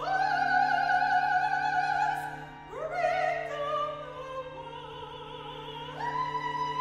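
Classical concert music for a chamber ensemble with a solo voice. A trained operatic voice sings long held notes with vibrato and slides up to a new note about three seconds in and again near the end, over sustained low chords from the instruments.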